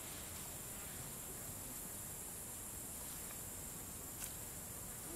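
Steady high-pitched chorus of insects, with one short click a little after four seconds in.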